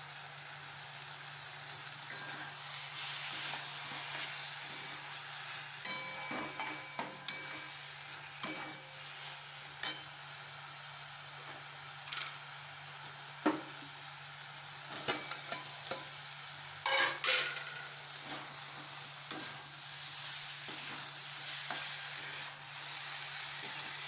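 Boiled eggs, potatoes and tomato masala sizzling in a non-stick wok while a spatula stirs and scrapes them, with irregular clacks of the spatula against the pan that are busiest about 15 to 17 seconds in. It is the dry-sautéing stage of an egg curry, before any water goes in.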